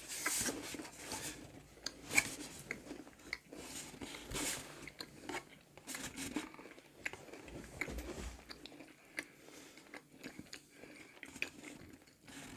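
People biting into and chewing small cheese biscuit bites, with irregular crunches and soft clicks.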